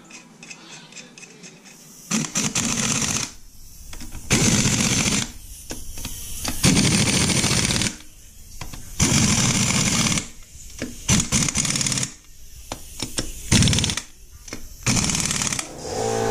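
Power impact wrench run in a series of rattling bursts of about a second each, starting about two seconds in and repeating some ten times with short pauses, as bolts are run in or tightened.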